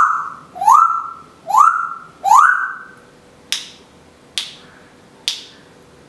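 Timneh African grey parrot whistling four times in quick succession, each whistle sliding up and then holding its pitch, followed by three sharp clicks about a second apart.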